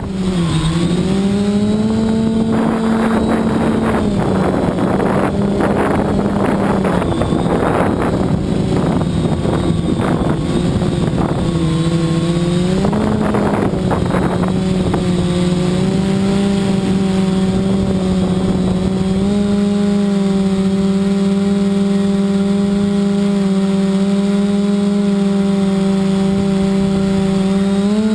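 Motors and propellers of a 580 mm multirotor drone humming in flight, the pitch dipping and rising a few times with throttle changes, then holding steady in the second half. Wind gusts buffet the microphone through the first half.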